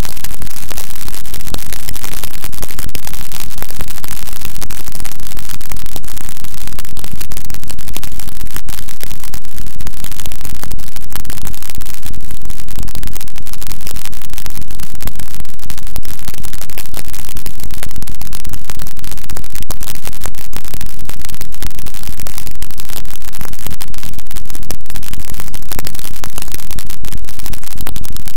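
Noise music track: a loud, unbroken wall of distorted static with dense crackle, holding steady with no pauses or changes.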